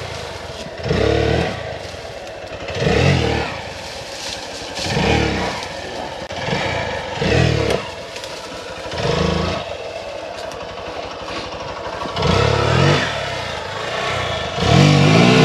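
Hero XPulse 200's single-cylinder engine revved hard in repeated bursts, about every two seconds, falling back between them, as the bike struggles for grip climbing a slippery off-road section.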